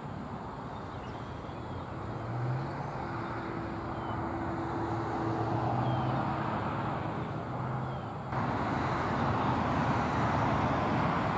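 Road traffic: a motor vehicle's engine and tyre noise, growing louder toward the end, with a few faint small-bird chirps.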